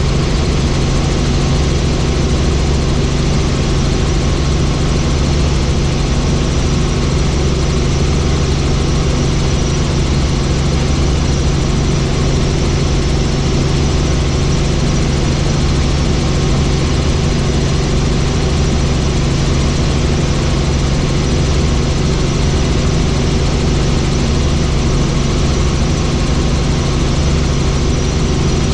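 Helicopter in flight: engine and rotor running at a steady pitch, a loud, even drone with a strong low hum.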